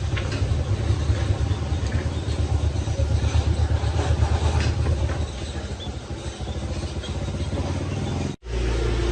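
A motorbike engine running with a pulsing low hum that drops back after about five seconds. The sound cuts off abruptly about eight seconds in, and a different steady engine hum follows.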